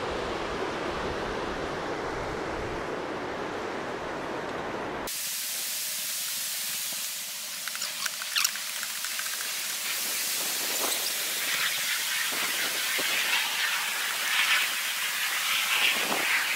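A steady low noise that cuts off suddenly about five seconds in, giving way to a bright, steady hiss with scattered light ticks.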